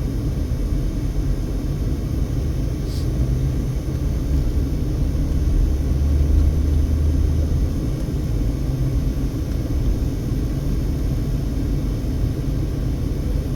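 Steady low rumble of a car driving slowly, engine and road noise, swelling slightly about halfway through.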